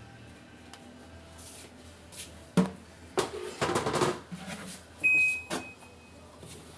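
A knock and a second or so of clattering handling, then a single electronic beep lasting about a second, like a top-loading washing machine's control panel.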